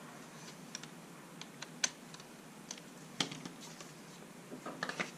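Scattered light clicks and taps of a hex driver and hard plastic RC chassis parts being handled while screws are driven in, with a sharper knock about three seconds in and a quick cluster of clicks near the end.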